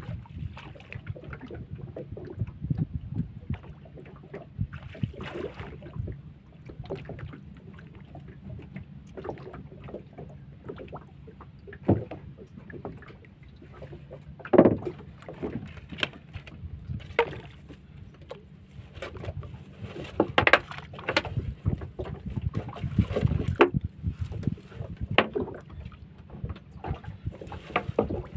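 Small wooden boat being poled and worked by hand: a steady low rumble of water and wind under scattered sharp knocks of the wooden pole and feet against the hull, a few of them loud.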